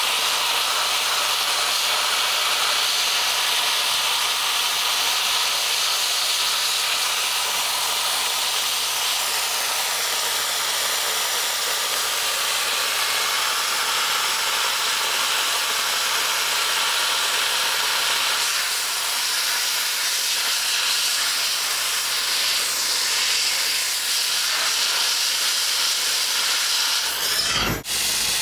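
Cryojet dry-ice (CO2) blasting gun spraying continuously: a loud, steady hiss of compressed air and ice. It breaks off briefly near the end, then resumes.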